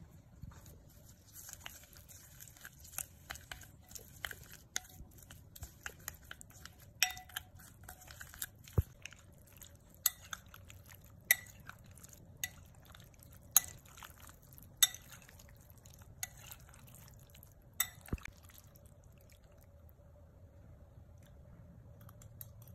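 A metal spoon clinks against a glass bowl as wontons are tossed in chili-oil sauce: about ten sharp taps, roughly one a second, over wet squishing. Earlier there is a soft rustle as chopped green onions drop into the bowl.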